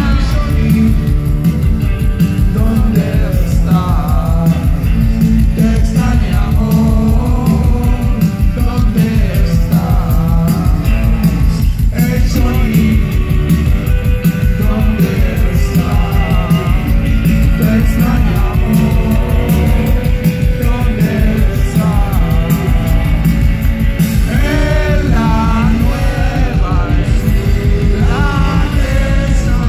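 Live rock band playing a song with electric guitars, bass and drums, and a man singing over them. Recorded from within the crowd, with heavy bass and drums dominating.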